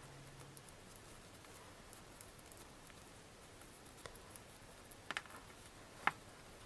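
Faint handling sounds of a cloth robe being worked onto a small plastic action figure: fabric rubbing with scattered small clicks and taps, the sharpest click about six seconds in.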